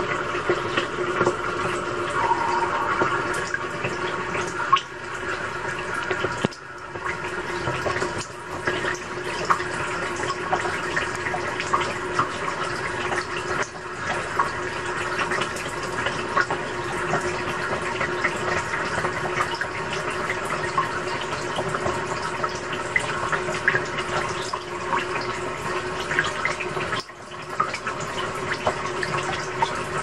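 Water running into a front-loading washing machine's drum as it fills, heard from inside the drum: a steady rush of water with a steady hum underneath.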